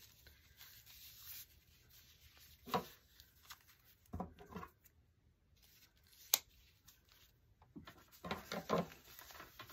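Thin plastic tablecloth strips rustling and crinkling as they are folded and handled, with several louder crinkles and one sharp click about six seconds in.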